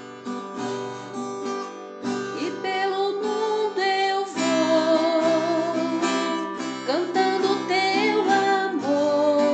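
Music: strummed acoustic guitar with a wavering melody line over it, the instrumental introduction to a Portuguese religious song about serving the Lord.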